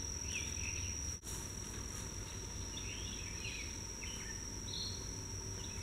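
Insects trilling steadily at one high pitch in summer woods, with a few faint chirps over it.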